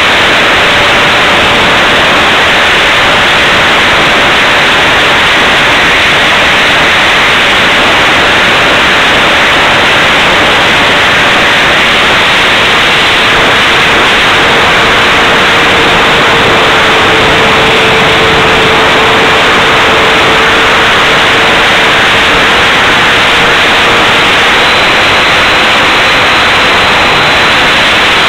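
HSD Viper 75 mm electric ducted fan jet in flight, heard from on board: a loud, even rushing hiss of fan and airflow, with a faint steady whine that drops in pitch about twelve seconds in and rises a little near the end.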